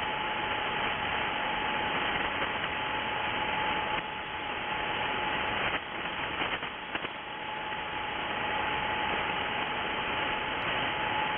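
Shortwave transceiver's single-sideband receive audio between transmissions: steady band-noise hiss with a thin, steady whistle from a carrier running through it, and the noise dipping briefly about six seconds in.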